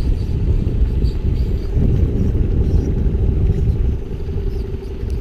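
Motorboat engine running nearby: a steady low rumble with a faint constant hum over it.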